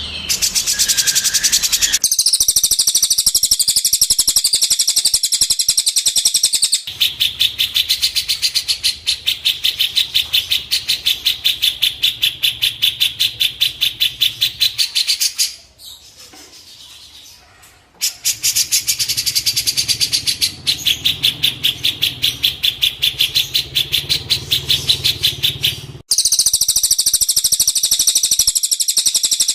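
Songbird 'masteran' training recording: a bird singing a long, fast, even series of high chirps at several notes a second. The song breaks off for about two seconds near the middle and resumes.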